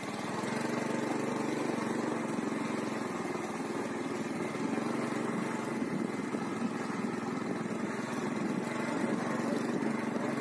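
A small engine running steadily at a constant speed, with a fast even chugging.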